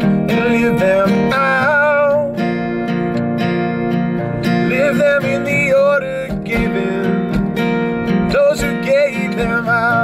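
Acoustic guitar, capoed up the neck, strummed steadily under a man's singing voice; the sung phrases come and go over the guitar.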